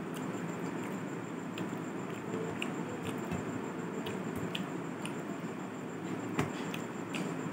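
Eating by hand from a steel plate: fingers squishing and mixing rice, with scattered small clicks and one sharper knock about six seconds in, over steady background noise.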